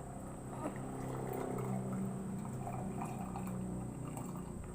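Freshly boiled green tea being strained and poured into a glass, a steady stream of liquid filling it, growing louder about a second in.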